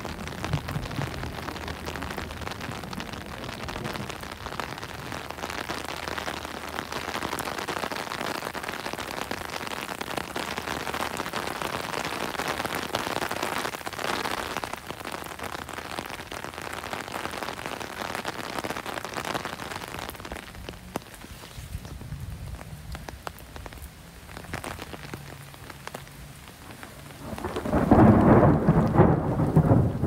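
Steady rain falling on wet pavement and foliage, easing for several seconds past the middle, then a loud rumble of thunder about two seconds before the end.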